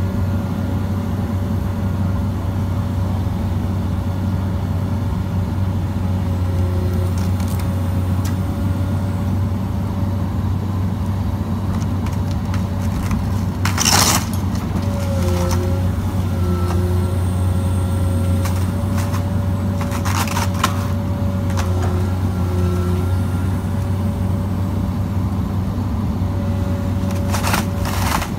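Komatsu PC200 LC hydraulic excavator's diesel engine running steadily under load, with a whine that bends in pitch now and then as the arm works. A few sharp cracks or knocks come over it: the loudest about halfway through, a couple more a little later, and several near the end.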